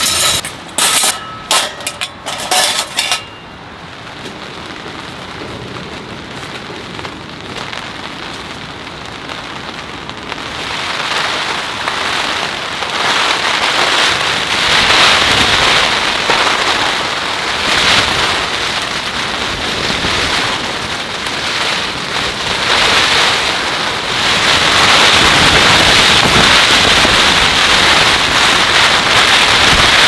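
Metal utensils clattering into a stainless wire mesh tray for about the first three seconds, then heavy rain falling hard on the tent's fabric and clear plastic window, growing louder about ten seconds in and heavier again near the end.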